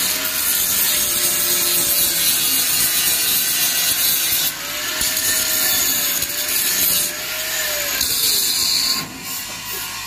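Aerosol spray paint can hissing as paint is sprayed along a steel angle bar, in long sprays that stop about nine seconds in.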